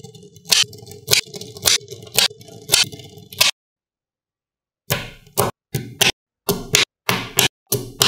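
Magnetic balls snapping together in a series of sharp clicks, about two a second. The clicks stop about three and a half seconds in, then resume a second and a half later at a quicker pace.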